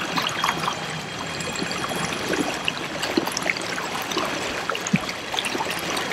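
Water churning and splashing in the prop wash behind a kayak driven by a small electric outboard motor: a steady gurgling wash with many small splashes.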